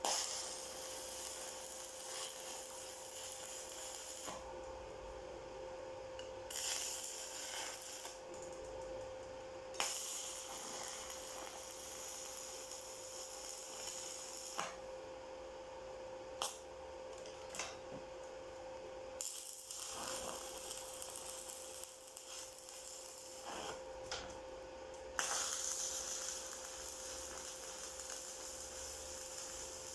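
Electric arc welding: the arc hisses and crackles in runs of several seconds, stopping and restarting a few times, with sharp metal clicks in the pauses. A steady hum runs underneath.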